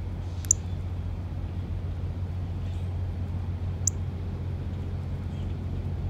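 Steady low rumble of distant road traffic, with two short, high chip notes from a bird, one about half a second in and one just before four seconds.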